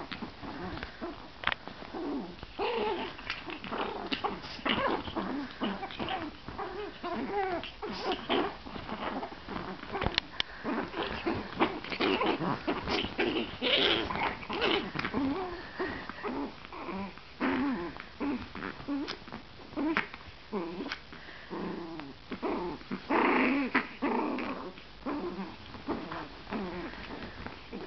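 Chihuahua puppies play-fighting, with short, irregular growls throughout and a louder flurry of growling a little after the middle. Bedding rustles as they tumble.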